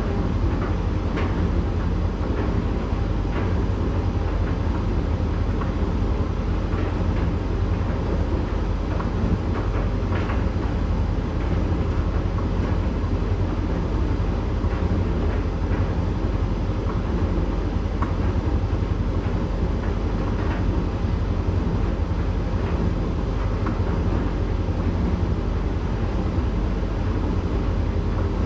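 Candy GrandO 9 kg tumble dryer running steadily in the drying phase of its Rapid 40-minute programme: a continuous low hum from the motor and drum, with scattered faint ticks as the towels tumble.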